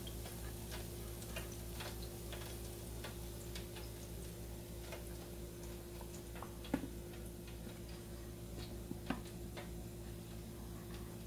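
Light clicks, about two a second with a couple of louder ones later on, over a steady low hum.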